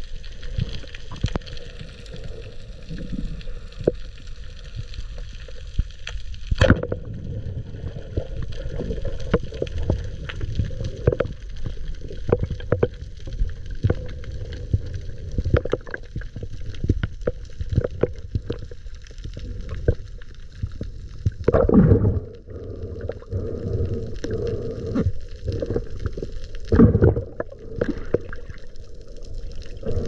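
Underwater sound: steady low water noise with many scattered clicks and knocks, and one sharp crack about a quarter of the way in, the band-powered speargun firing. Later come two louder rushes of water noise, one about two thirds of the way in and one near the end.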